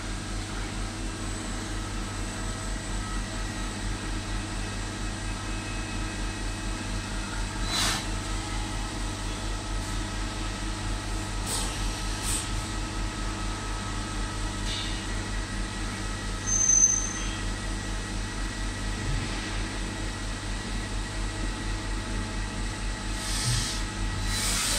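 CNC vertical milling machine running during a G84 tapping cycle with a tap in the spindle: a steady mechanical hum with a pulsing low end and several steady whines. A few short clicks, and a brief high squeak about two-thirds of the way through.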